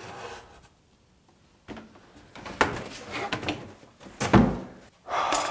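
Cardboard box and packaging being handled while the blender is worked out of it: scattered knocks and scrapes, then a heavy thump a little over four seconds in.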